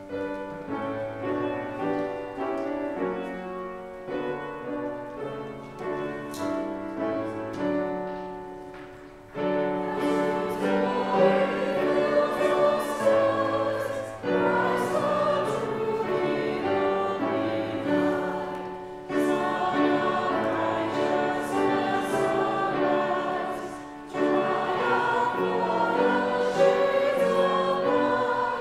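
A church congregation singing a hymn with accompaniment. A quieter instrumental opening plays for about the first nine seconds, then the singing comes in louder, with brief dips between phrases.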